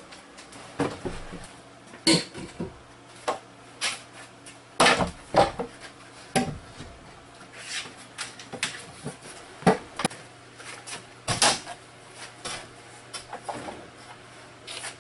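Wooden boards knocking and clattering as they are set down and leaned against a wooden wall: irregular wood-on-wood knocks, several louder ones near the middle.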